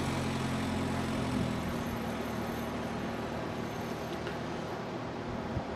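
Sand buggy's Toyota 4K 1300cc four-cylinder engine running as it drives away, its engine note fading after about a second and a half into a steady hiss of wind and distant engine.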